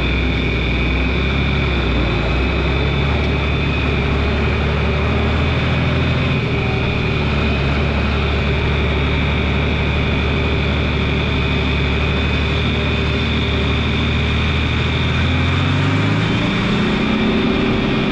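John Deere 2940 tractor's six-cylinder diesel engine running on a ride, with a steady high whine over it. It holds a low, even speed for most of the time, then revs up again near the end.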